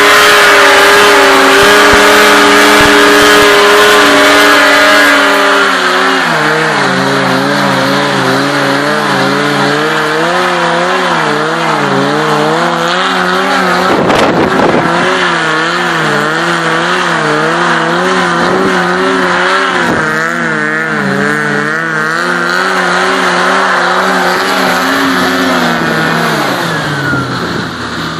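A vehicle engine running at high, steady revs, then dropping about five seconds in. It keeps running at lower revs that waver evenly up and down in pitch, and falls again near the end.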